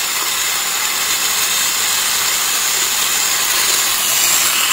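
Epilady epilator's small 12 V DC motor running and spinning its coiled spring as it is drawn over a hairy forearm, working normally. It makes a steady high whir that does not change.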